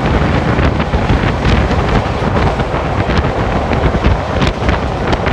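Wind buffeting the microphone held out of the open door of a moving passenger train, over the steady rumble of the coach running on the rails, with scattered sharp ticks.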